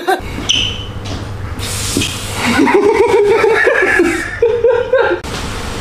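A man laughing, loudest from about two and a half seconds in, over the hiss of a hand-pump water sprayer misting his hair.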